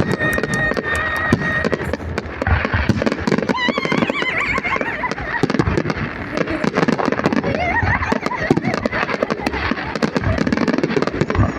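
Fireworks display: a rapid, continuous run of sharp bangs and crackling bursts.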